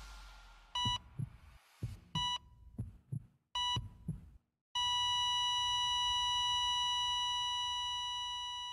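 Heart-monitor sound effect: three short beeps about a second and a half apart over slow double heartbeat thumps, then a brief silence. The monitor then flatlines into one long steady tone, the sign that the heart has stopped.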